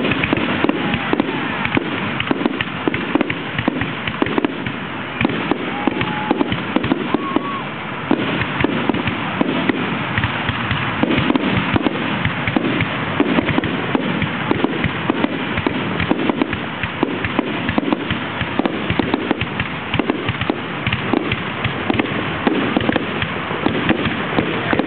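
Fireworks going off in rapid, unbroken succession: a dense barrage of bangs and crackling.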